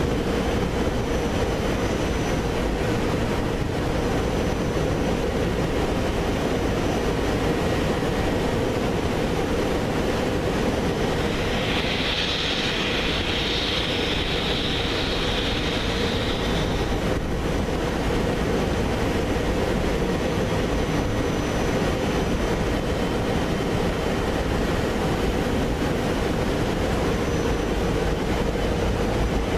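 Amtrak Keystone passenger train moving slowly through the rail yard, a steady rumble and hum. A high squeal comes in about twelve seconds in and lasts about five seconds.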